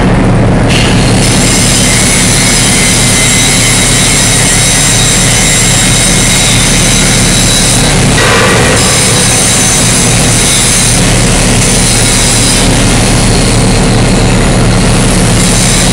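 Canadian Pacific diesel locomotive running in a steel shop: a loud, steady engine drone with constant high whining tones over it, heard by the tagger as train wheels squealing.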